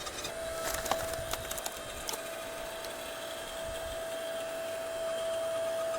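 A 7-ton hydraulic log splitter forcing its wedge through a log. The wood cracks and splinters in the first two seconds over the machine's steady whine.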